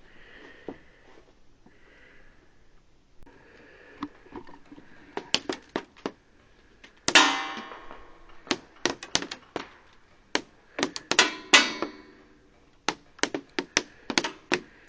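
Airsoft gunfire: sharp snapping shots in quick strings, several bursts of a handful of shots each, with one louder ringing hit about seven seconds in.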